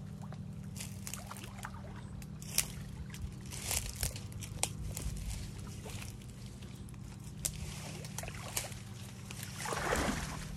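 Water sloshing, trickling and splashing around a man wading waist-deep through a muddy canal, with scattered small splashes and a louder burst of sloshing near the end. A steady low hum runs underneath.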